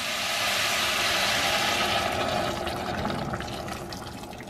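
Vegetable stock poured in a steady stream onto hot sautéed vegetables in a steel pot, splashing as the pot fills. The pour is strongest for about two seconds, then tapers off and fades.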